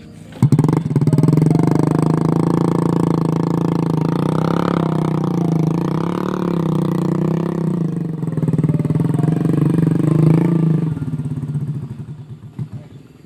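Small motorcycle engine running hard at fairly high revs, its pitch wavering as the throttle shifts, then slowing to separate firing pulses and dying away near the end.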